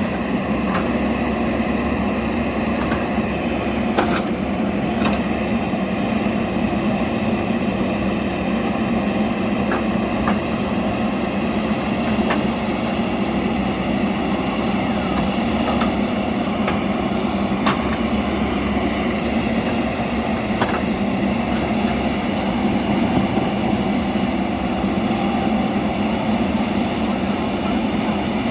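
JCB backhoe loader's diesel engine running steadily under work, with a few sharp clicks and knocks scattered through it.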